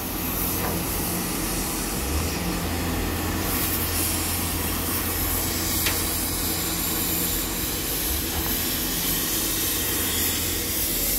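Steady hiss of gas cutting torches working on a steel ship hull, over a constant low machinery hum.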